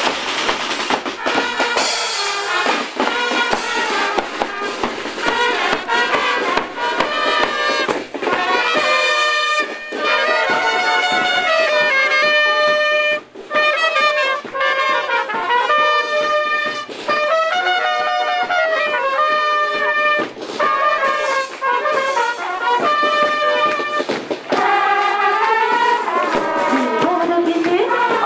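Marching brass band playing a tune: trumpets and other brass hold and step between notes over regular drum beats from bass and snare drums.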